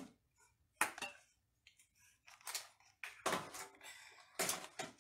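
A spoon stirring in an Instant Pot's stainless steel inner pot: several separate knocks and scrapes against the metal.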